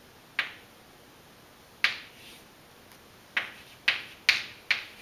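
Chalk tapping and scraping on a blackboard while writing: six sharp taps, each with a brief scratch after it, two spread out early and four in quick succession near the end.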